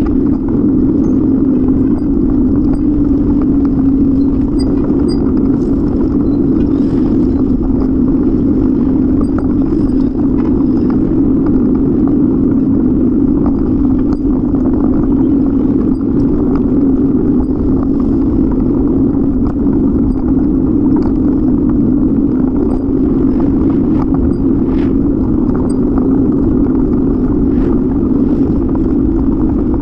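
Steady wind and road rumble from a moving bicycle, heard on a bike-mounted camera's microphone, with faint scattered clicks and rattles.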